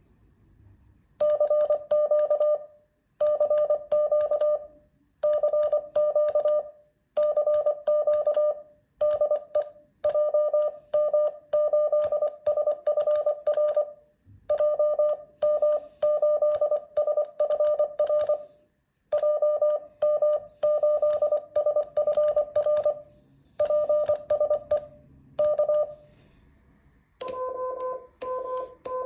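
Morse code CW sidetone: a steady beeping tone keyed into dots and dashes from a Begali Sculpture iambic paddle, sending a CQ call ("CQ CQ CQ CQ de JM8SFR … PSE K"), with faint clicks of the paddle levers. Near the end a lower-pitched tone takes over, sending the reply "JM8SFR de JZ1ABC".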